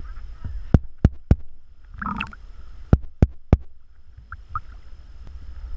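Fingertip tapping on a GoPro's waterproof housing: two sets of three sharp taps, each tap about a third of a second apart, over a low sloshing rumble of sea water against the case. A short muffled sound comes between the two sets.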